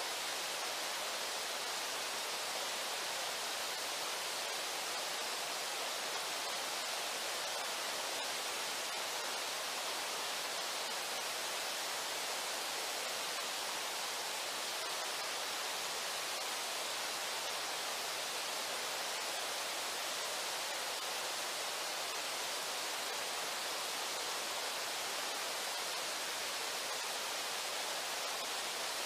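Steady rushing of river water, an even hiss-like roar that does not change.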